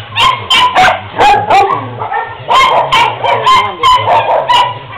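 Kennelled dogs barking over and over, with sharp, loud barks coming about two to three a second.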